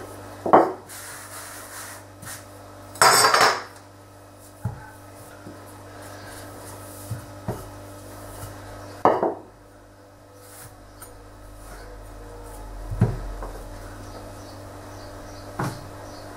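Wooden rolling pin knocking on and rolling over a hard floured worktop as scone dough is re-rolled. A handful of sharp knocks, with a louder, longer rolling scrape about three seconds in.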